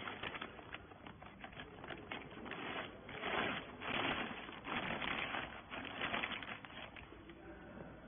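Clear plastic bag crinkling and rustling in irregular bursts as it is tugged over a compressed bale of wiper rags. It is loudest around the middle and eases off near the end.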